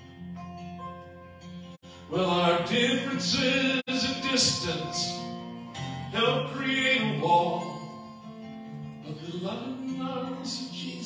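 A man singing a slow song to his own strummed acoustic guitar. The guitar plays alone at first, and his voice comes in about two seconds in, holding long notes.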